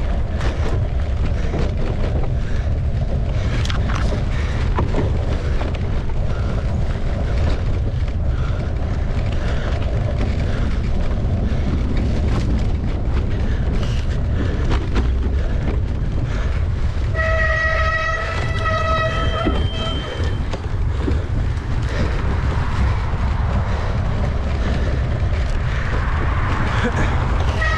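Wind buffeting the microphone of a camera on a moving mountain bike, with rattles and knocks from the bike over rough ground. About 17 seconds in, a held horn-like tone sounds for about two and a half seconds, and another starts at the very end.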